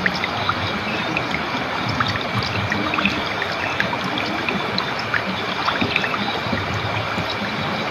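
Water flowing and trickling over stones in a small stream, a steady rush dotted with many small splashing plinks.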